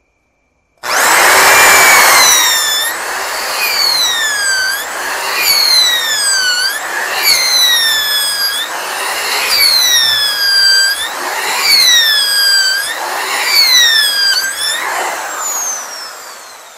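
570-watt electric drill, its motor rewound with copper wire, boring into a block of wood with a 10 mm bit. The motor starts about a second in, and its whine sags again and again as the bit bites and recovers as the bit is pulled back to clear chips, about every second and a half. It tapers off near the end.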